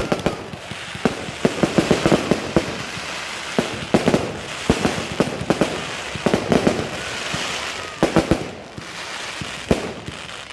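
Fireworks display going off: rapid bangs and crackling, several clusters a second or so apart, over a continuous hiss of burning shells.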